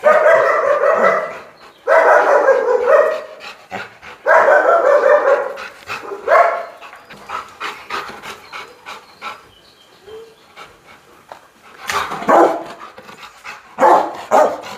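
Rottweiler barking in loud volleys about two seconds apart, then a quieter stretch of a few seconds, then two shorter volleys near the end.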